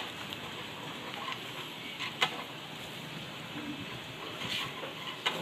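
Liquid packing machine running: a steady hiss with sharp clicks, the loudest about two seconds in and another near the end.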